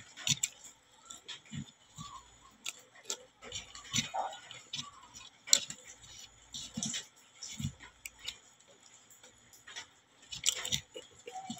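Popcorn being chewed up close and kernels picked by hand from a bowl: irregular crisp crunches and small clicks, several a second at times, with quiet gaps between.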